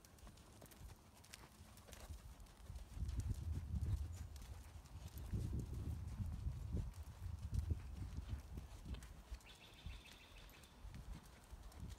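Horse walking on a sand arena, its hooves making dull, muffled thuds in the soft footing. The hoofbeats grow louder in the middle.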